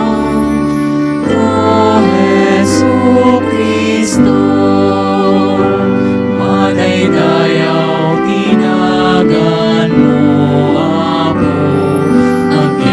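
A slow hymn sung in Ilocano over held accompaniment chords that change every second or two.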